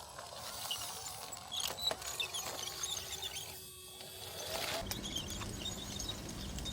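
Small electric drive motors and gearing of a 3D-printed RC bulldozer whirring, with scattered clicks and crunching. A steady tone runs through the middle, and about five seconds in a lower, steady hum takes over.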